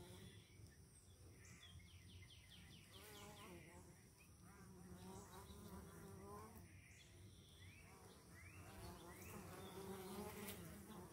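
Honeybees buzzing at a hive entrance as foragers fly in and out close to the microphone. The hum is faint and wavers in pitch, swelling and fading as each bee passes.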